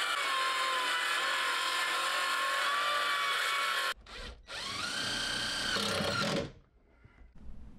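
Circular saw running steadily through a sheet of cement board, its whine sagging slightly under the cut, cut off abruptly about four seconds in. Then a cordless drill whirs in two short runs driving a screw, the second run rising in pitch before it stops.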